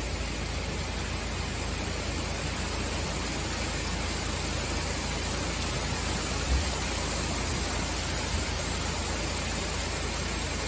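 Heavy summer downpour: rain pouring steadily as a dense, even hiss, with one brief low thump a little past halfway through.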